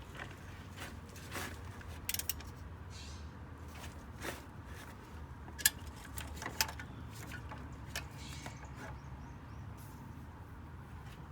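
Scattered metallic clicks and taps of hand tools working on an engine as it is turned over by hand, the sharpest about halfway through, over a steady low hum.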